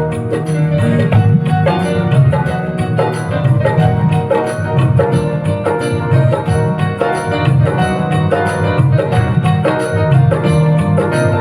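Music with a steady, quick beat and sustained keyboard-like notes, played loud over a sound system for a sound check.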